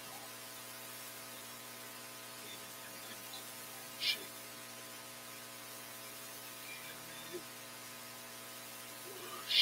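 Steady electrical mains hum from the microphone and sound system, made of many constant tones. There are two brief faint hisses, one about four seconds in and another at the very end.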